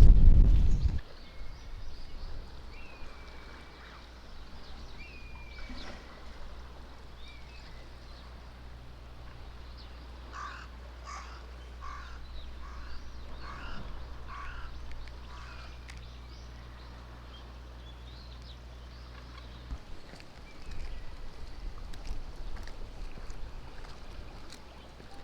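A crow cawing, a run of about six caws at roughly two a second midway through, with a few brief higher bird calls before it. A steady low hum runs underneath and stops suddenly near the end.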